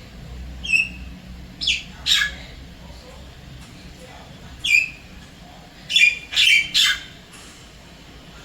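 Javan myna calling: a series of short, sharp calls, some falling in pitch like a dropping whistle, spaced a second or two apart, with a quick run of three near the end.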